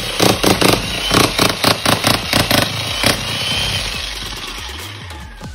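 Fujihama electric jackhammer running and hammering in quick, regular pulses, then stopping about three seconds in and winding down.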